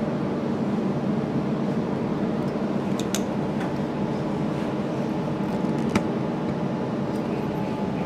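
Alstom Citadis 302 tram running, heard from on board: a steady rumble with a faint whine, and two sharp clicks about three and six seconds in.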